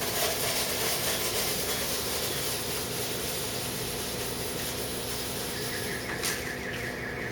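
Nankai Main Line train running through the station, a steady rolling noise of wheels on rail with a hiss over it. A short click comes about six seconds in, and a higher steady tone joins near the end.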